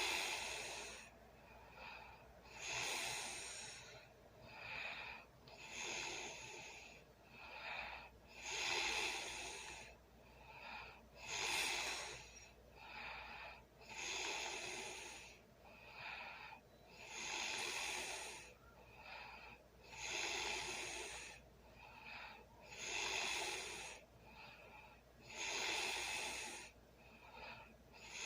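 A sleeping person snoring and breathing heavily: a loud, noisy snoring breath about every three seconds, with a softer breath between each.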